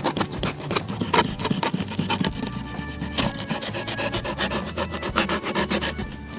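Rapid, uneven rasping strokes of a hand tool cutting or scraping material, many strokes a second, thinning out near the end.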